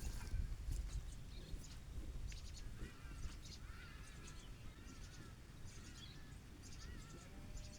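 Small birds chirping in quick, repeated short arched calls, coming in about two and a half seconds in and going on steadily, over a low steady rumble.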